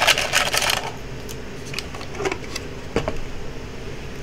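Paper card being handled in the hands: a loud rustle in the first second, then scattered small crinkles and taps, over a low steady hum.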